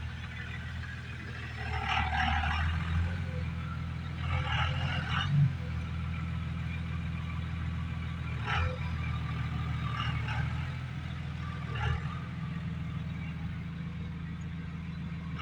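Cummins 24-valve diesel idling steadily while still warming up after a cold start, with a faint high turbo whistle over the low engine hum. A few brief louder hissing noises come and go.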